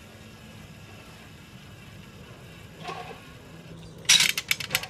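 Automated fishing-rod casting mechanism firing its cast: over a steady low hum, about four seconds in a sudden loud burst of rapid snaps and clicks as the rod is released and line runs out.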